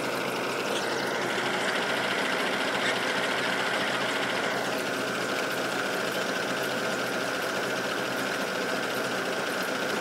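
CAT 312 excavator's diesel engine running steadily. A faint higher whine comes in about a second in and drops away near the middle.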